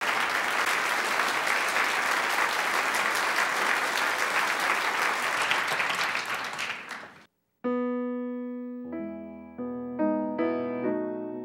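Audience applauding, fading out after about seven seconds. After a brief pause a grand piano starts playing, slow notes and chords.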